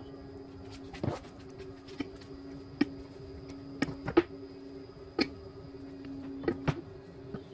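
Handling sounds of brushing PVC solvent cement into a PVC pipe fitting: about nine sharp clicks and knocks at uneven intervals as the brush dabs the cement can and the fitting is turned in the hands, over a steady low hum.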